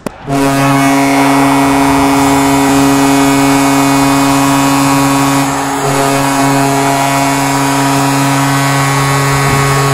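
Goal horn starting a moment in and holding one loud, steady, deep multi-tone blast, signalling a goal just scored.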